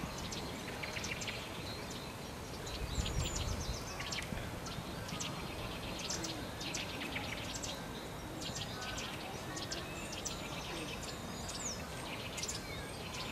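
Songbirds chirping and calling, with many short, high notes scattered throughout over a steady background hiss. A brief low rumble comes about three seconds in.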